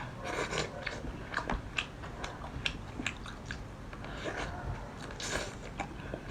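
Close-miked eating of lobster meat: biting and chewing, with wet mouth smacks and many irregular sharp clicks.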